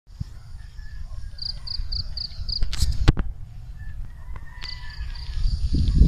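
Wind rumbling on the microphone, with a run of short high chirps, about four a second, heard twice over, and two sharp clicks about three seconds in.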